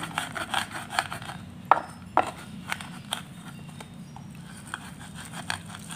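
Stone pestle (ulekan) grinding peanuts, palm sugar and chilli in a clay mortar (cobek) for peanut sambal: irregular scraping and knocking, several strokes a second, with two harder knocks about two seconds in.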